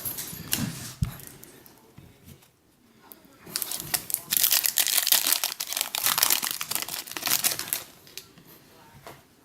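Trading-card pack wrapper being torn open and crinkled by hand, a dense crackling from about three and a half seconds in that lasts around four seconds.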